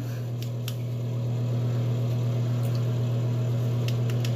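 A small battery-powered 4-inch handheld fan running steadily: a constant low motor hum with airy blade noise, and a few faint clicks from handling it.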